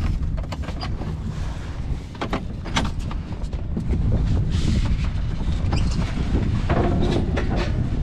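Wind buffeting the microphone in a steady low rumble, with scattered knocks and rattles as a fibreglass cockpit locker lid is lifted and things inside the locker are moved about.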